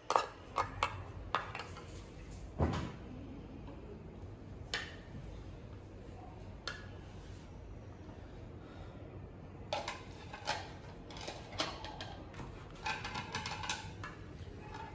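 Clinks and clatters of plates and a serving spoon as rice is dished out and plates are set down, in scattered single knocks with a busier run of clattering about ten seconds in.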